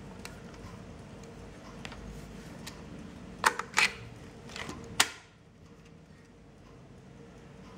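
A 1952 VEB Belca Belfoca folding roll-film camera being unfolded: a few sharp metal clicks as the front door is released and swings down, then a louder snap about five seconds in as the lens standard springs out and locks on its struts.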